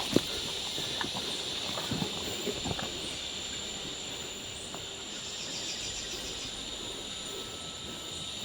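Night insects, crickets, chirring steadily in high, even bands, with a few faint clicks or rustles in the first few seconds.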